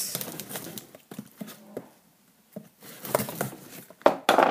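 Hands opening a taped cardboard shipping box: scattered scratches, taps and rustles of fingers on the cardboard and tape, with a louder scrape near the end.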